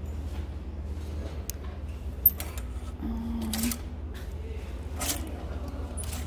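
Plastic clothes hangers clicking and sliding along a clothing rack as garments are pushed aside one by one: a few separate clicks and short scrapes, the sharpest about two seconds in. A steady low hum runs underneath.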